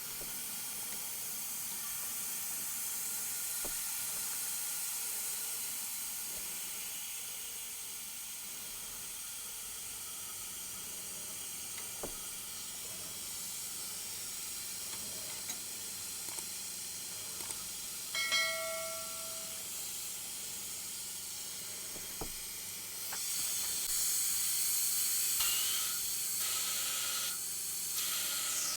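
Pneumatic vacuum brake bleeder running on compressed air: a steady hiss as it draws brake fluid and air out at the caliper's bleed screw. It grows louder for the last few seconds, then cuts off suddenly.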